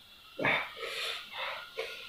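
A person blowing and sniffing his nose into a tissue, his nose running from very spicy noodles: one sharp blow about half a second in, then a few shorter, fainter nasal sniffles and whimpers.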